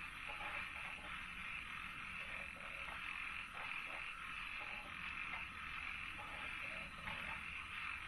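Frogs croaking in short, irregular calls over a steady high-pitched background chorus.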